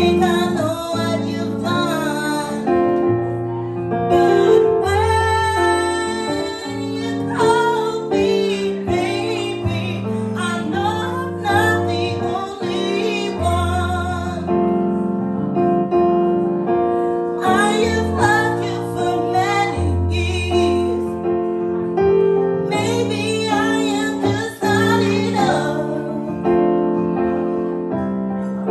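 A woman singing a pop cover with piano-style keyboard accompaniment. The keyboard plays sustained chords throughout, and the vocal phrases come and go over it.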